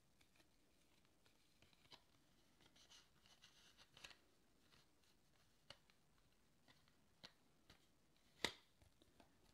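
Faint scraping and ticking of a baseball card being slid into a semi-rigid plastic card saver, with a sharper click near the end.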